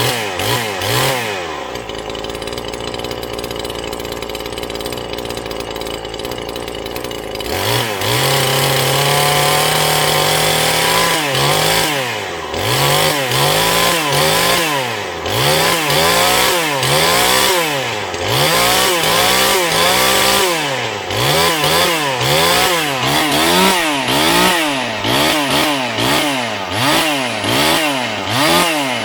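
Neotec NH843 43cc two-stroke chainsaw running: idling steadily for a few seconds, then held at high revs for about three seconds, then revved up and down over and over, about once a second.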